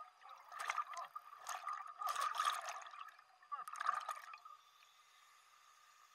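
A scuba diver's exhaled bubbles gurgling out of the regulator underwater, in several bursts that stop about four and a half seconds in, leaving a faint steady tone.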